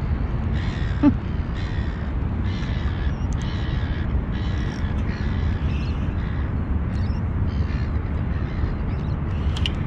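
A bird calling over and over, about a dozen short calls spaced half a second to a second apart, over a steady low rumble. A single short knock comes about a second in.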